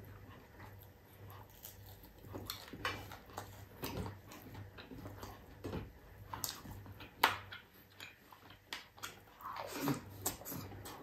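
Close-up eating sounds: chewing and lip smacking as rice and crispy fried galunggong (round scad) are eaten by hand, with irregular wet clicks and a sharp smack about seven seconds in.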